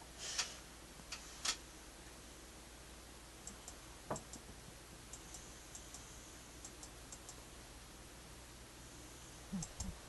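Faint, scattered clicks and ticks over a low steady hum, with a brief low rumble of the phone being handled near the end.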